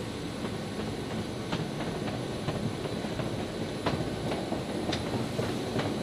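Cargo pallet rolling across the C-130J's floor rollers into the hold: a steady rumble with irregular clicks and clunks about once a second. A faint steady high whine runs underneath.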